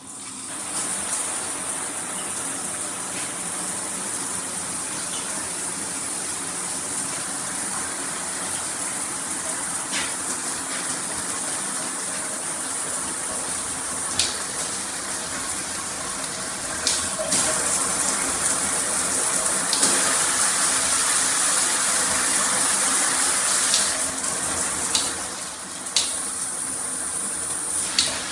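Handheld shower head spraying water in a steady gush. It grows louder about two thirds of the way through, dips briefly near the end, and a few faint clicks sound over it.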